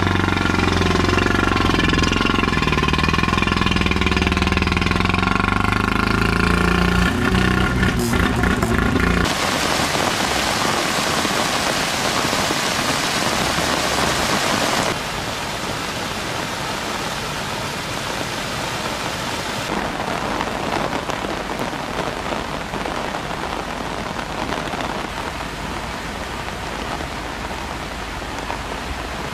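Heavy rain with a car engine running close by for about the first nine seconds; the engine cuts off abruptly, leaving a steady hiss of rain and running water.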